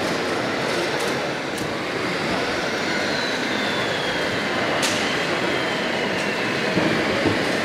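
Steady, loud din of a busy model-building show, with a few sharp clicks and a faint high whine that slides down in pitch through the middle.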